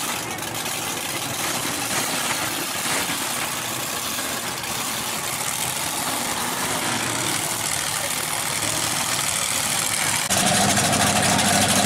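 Lifted mud trucks' engines idling and running. About ten seconds in the sound jumps louder, with a steadier, stronger engine note.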